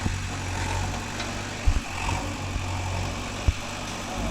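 JCB 3DX backhoe loader's diesel engine running steadily at a low, even speed as the rear backhoe bucket levels soil, with two short knocks a couple of seconds apart.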